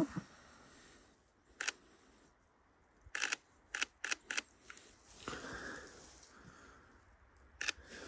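Camera shutter firing, sharp clicks in singles and short quick runs, about eight shots spread over several seconds.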